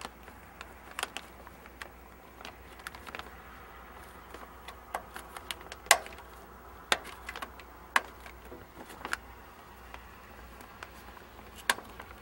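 Wiggle wire clicking against an aluminium lock channel as it is pressed in, with greenhouse poly film crinkling: scattered sharp clicks, the loudest about six seconds in.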